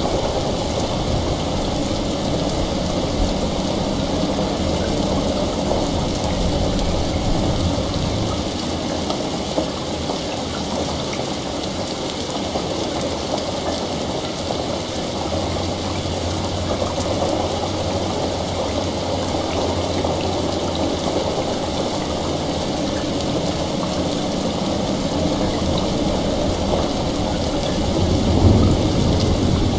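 Steady heavy rain with distant rolling thunder rumbling low now and then, swelling briefly near the end.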